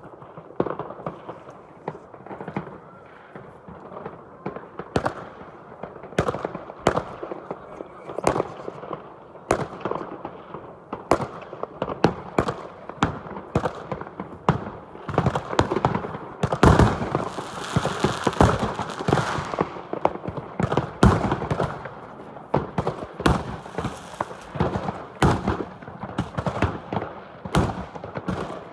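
Fireworks going off all around: a constant run of overlapping bangs and pops, with a denser, louder flurry of bangs and crackling a little past the middle.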